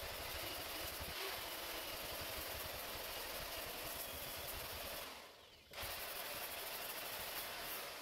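Power tool with a metal wire brush scrubbing old whitewash and wallpaper off a wall, a steady abrasive noise that breaks off briefly about five seconds in.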